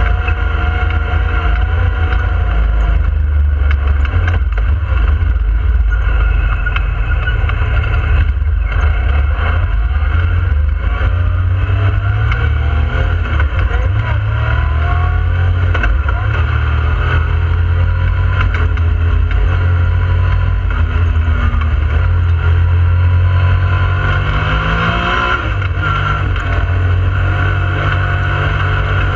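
Yamaha YXZ1000R side-by-side's three-cylinder engine running under way, its revs rising and falling with the throttle, heard from inside the open cab.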